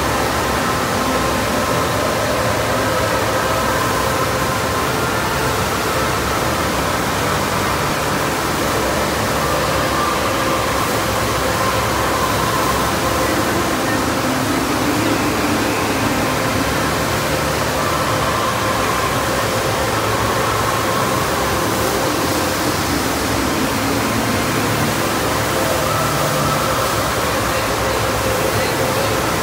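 FlowRider sheet-wave machine running: a steady, loud rush of pumped water pouring up the padded ride surface.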